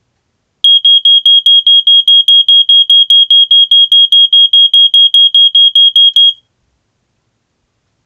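First Alert SA76RD smoke detector (first-generation SA67D) sounding its piezo horn while its test button is held: loud, rapid, even beeping on one high pitch, about five beeps a second, stopping abruptly about six seconds in when the button is released.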